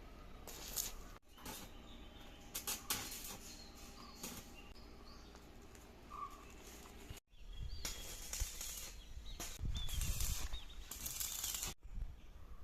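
Electric arc welding crackling in irregular bursts, with faint bird chirps behind it; the sound breaks off abruptly a few times.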